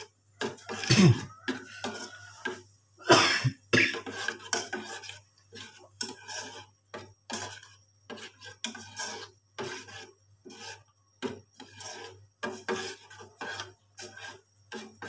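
A spoon scraping and knocking against the sides and bottom of a stainless steel pot, stirring blended chilli-and-spice paste while it heats toward a boil. It is a run of short, irregular scrapes, one or two a second, louder in the first few seconds.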